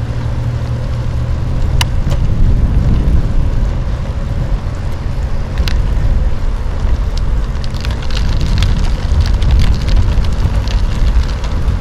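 Steady low rumble of a rigid, non-suspension bicycle rolling over asphalt, carried into a handlebar-mounted DJI Osmo's microphone. Scattered sharp clicks and rattles from the mount and bike, thickest in the last few seconds.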